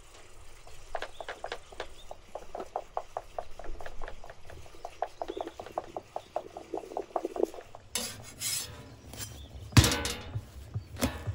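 A utensil stirring briskly in a bowl, tapping its side in an even run of clicks about four to five a second. Near the end a spatula knocks and scrapes on a steel griddle plate as a flatbread is handled.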